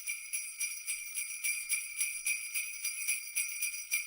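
Jingle bells shaken in a steady rhythm, their bright ringing tones sounding on every shake.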